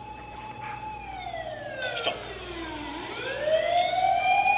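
Recorded siren wail played through laptop speakers: one tone holds, slides slowly down for about two seconds, then sweeps back up and holds again.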